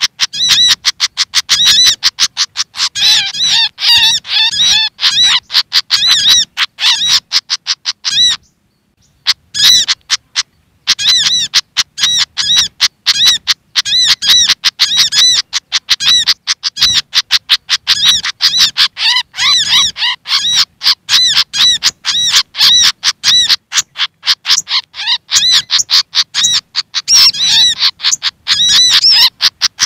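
Agitated pied fantail (sikatan kipas) calls, likely mixed with sogok ontong calls, played as a bird lure: rapid, dense, high chirping and chattering, several notes a second. The calls stop briefly about eight and a half seconds in, then start again.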